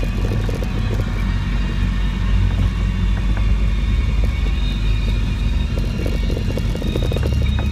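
Land Rover 90's diesel engine droning steadily inside the cab at low speed on a rough track, with short knocks and rattles from the body over the bumps, more of them near the end.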